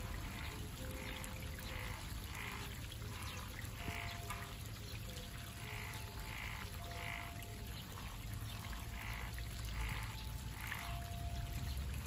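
Frogs croaking in a steady run of short calls, about one or two a second, over the constant rush of a small stream.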